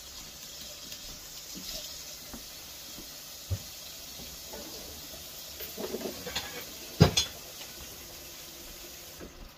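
Kitchen clatter: a few sharp knocks of dishes and utensils, the loudest two close together about seven seconds in, over the steady hiss of a stir-fry sizzling in a wok.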